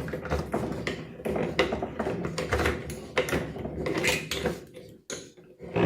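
A bolt on a washing machine's drive mechanism being loosened counterclockwise by hand and tool, with irregular metallic clicks, knocks and scraping that thin out near the end.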